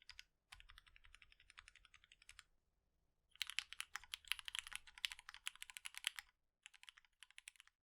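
Fast typing on a custom gasket-mounted mechanical keyboard with lubed Gateron Milky Yellow linear switches, a polycarbonate plate and PBT keycaps: quick runs of keystrokes in three bursts with short pauses between them, the middle burst the loudest.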